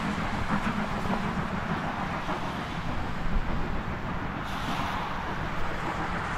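Steam train hauled by S15 Class locomotive No. 506 passing, giving a steady rumble with no distinct beats or whistles.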